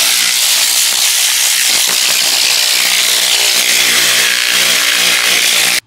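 Compressed-air blow gun with a brush nozzle hissing loudly and steadily as it blows debris out of a car's door panel and interior, then cutting off abruptly near the end.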